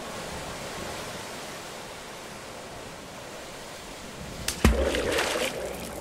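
Steady road and wind noise of a car driving. About four and a half seconds in come two sharp knocks, then a louder, rougher noise for about a second and a half.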